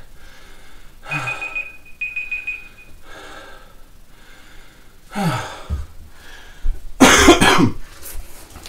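A man breathing hard and gasping, out of breath after an all-out set of push-ups, with a loud cough near the end as the loudest sound.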